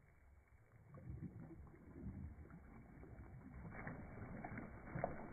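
Faint splashing and sloshing of lake water stirred by hands working at the surface beside a boat. It starts about a second in as irregular small splashes and grows busier toward the end.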